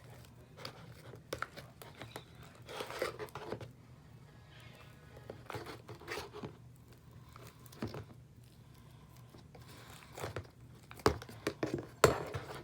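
Fluffy slime (glue, shaving cream and Tide activator) being stirred in a bowl: irregular wet squishing and crinkly scraping strokes over a steady low hum.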